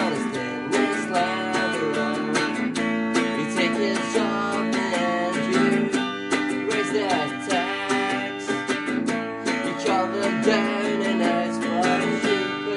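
Acoustic guitar strummed in a steady rhythm, playing an instrumental passage of a folk-punk song.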